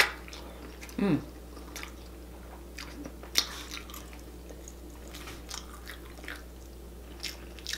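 Close-up eating sounds: scattered wet mouth smacks and clicks from chewing a sauce-soaked potato, with a short falling vocal sound about a second in.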